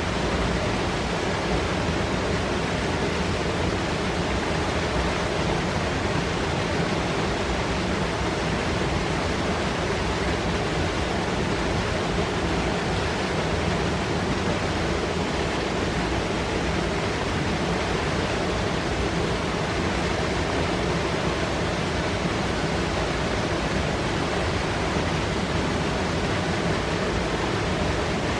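Mountain river running hard over rocks, a steady, even rush of foaming white water with no single knocks standing out.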